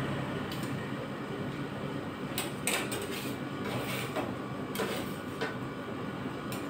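Metal spatulas scraping across the chilled steel pan of an ice cream roll machine, several short scrapes a second or so apart, over the steady hum of the machine's refrigeration unit.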